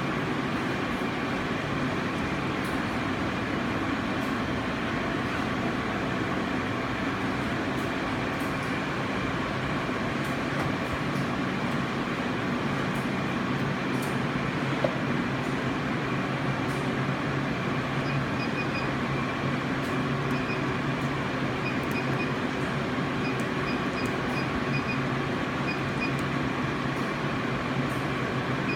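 Steady machine hum with several steady low tones over a hiss. Faint quick high chirps come in short groups in the second half, and there is a single click about halfway through.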